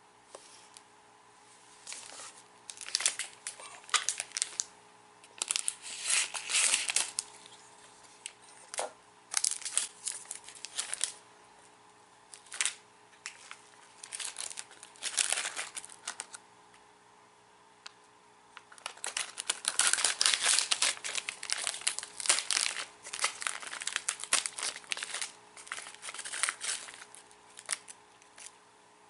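Plastic snack wrapper of a rice cracker crinkling and being torn open, in repeated bursts with short pauses.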